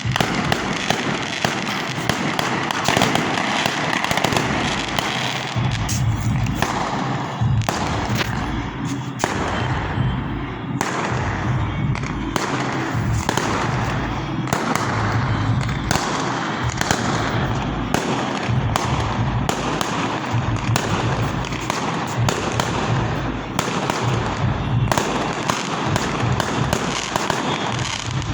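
Fireworks and firecrackers going off: a dense, continuous run of crackling pops mixed with repeated low thuds.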